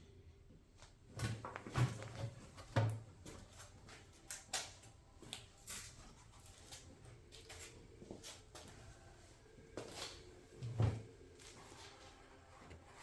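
Scattered clicks, knocks and light clatter of tools and parts being handled during lawnmower repair, with a few heavier thumps about a second in, around three seconds, and again near the end.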